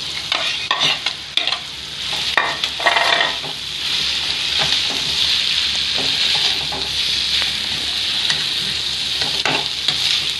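Boiled potatoes scraped into a metal kadhai of frying peas and paneer and stirred with a metal slotted spoon: the spoon scrapes and clatters against the pan over sizzling oil. The sizzle becomes a steady, fuller hiss from about four seconds in as the stirring goes on.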